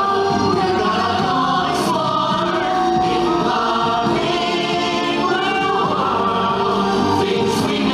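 A stage-musical song: a chorus of voices singing together over instrumental backing.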